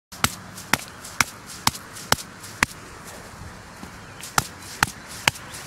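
A wooden garden stake being struck to drive it into the soil: sharp knocks about two a second, six in a row, a pause, then four more.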